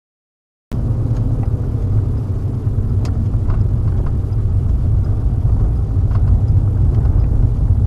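Steady low rumble of a car's engine and tyres heard inside the moving car through a dashcam microphone, cutting in abruptly about a second in, with a few faint clicks.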